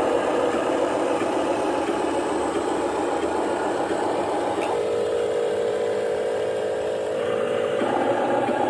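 Motors of radio-controlled construction models running with a steady whir. The pitch drops about five seconds in and rises again near the end as the load changes.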